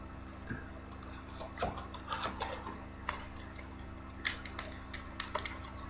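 Trading cards and their plastic sleeves being handled: light rustling and scattered small clicks, with a few sharper clicks about four and five seconds in, over a faint steady hum.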